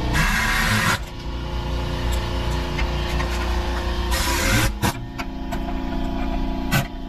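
A power tool running in bursts on the rusty exhaust under the vehicle: once at the start for about a second, and again about four seconds in. A steady mechanical hum runs underneath, and there are two sharp metallic knocks near the end.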